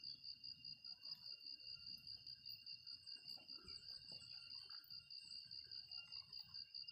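Faint, steady chorus of insects: a high-pitched trill pulsing evenly several times a second.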